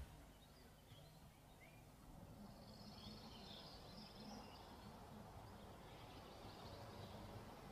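Near silence: faint background ambience, with a few faint bird chirps about two to four seconds in.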